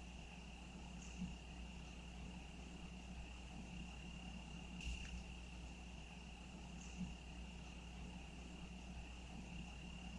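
Faint, steady high-pitched trilling of crickets, with three brief soft sounds at about one, five and seven seconds in.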